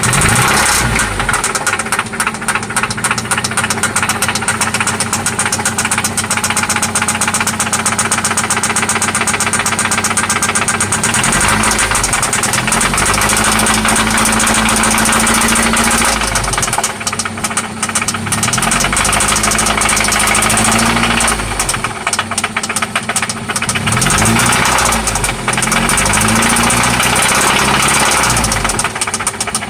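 1995 Toyota Celica ST four-cylinder engine running with a rapid, steady knocking. It idles and is revved up and held three times, the knocking keeping pace with the engine. The owner calls this engine knock.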